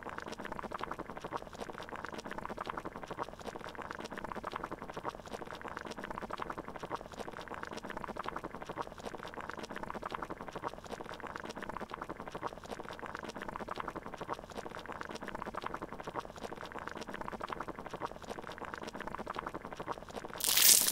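Steady bubbling of boiling water. A short, loud whoosh comes near the end.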